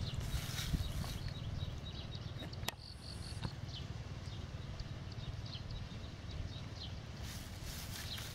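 Faint outdoor ambience: insects chirping in short repeated pulses over a steady low rumble, with one sharp click a little under three seconds in.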